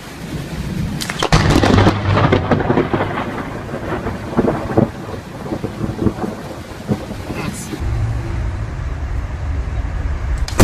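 Thunder from a close lightning strike: a rising rumble breaks into a sharp crackling crack about a second in, then rolls on with scattered cracks and a low rumble, over the hiss of rain. Another sudden crack begins right at the end.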